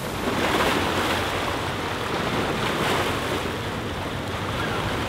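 Small waves washing against rocky shoreline boulders, a steady rushing hiss of water.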